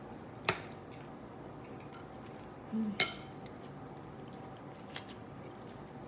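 Dishes and cutlery clinking: three sharp clicks about half a second, three seconds and five seconds in, the middle one the loudest and just after a short low hum.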